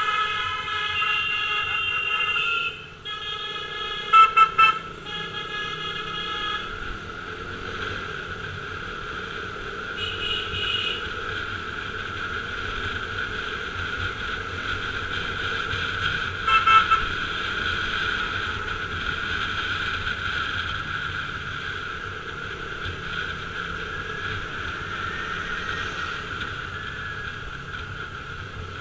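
Riding a KTM RC 200 through traffic: the motorcycle's single-cylinder engine runs steadily under wind noise. A horn sounds for a couple of seconds at the start, then short loud toots come three in quick succession about four seconds in and twice more around sixteen seconds in.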